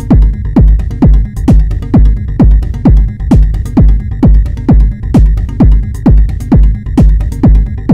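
Live techno from a Eurorack modular synthesizer: a steady four-on-the-floor kick drum at about two beats a second, each hit dropping in pitch, with short hi-hat-like ticks between the kicks and a steady high tone held underneath.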